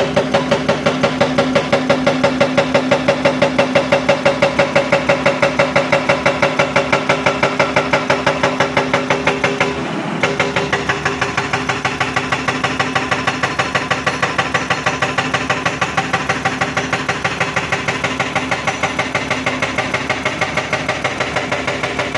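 Excavator-mounted hydraulic rock breaker hammering at rock, a rapid, even run of several blows a second over the machine's engine, with a short break about ten seconds in before it picks up again.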